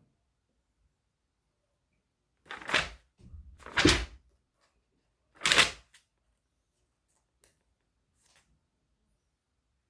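Three short bumps of something being handled close to the microphone, about a second apart, the second one the loudest, followed by two faint ticks near the end.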